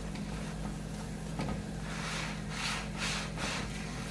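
Chapati frying in a little oil in a flat pan, with the soft scrape of a plastic spatula pressing and turning it several times, over a steady low hum.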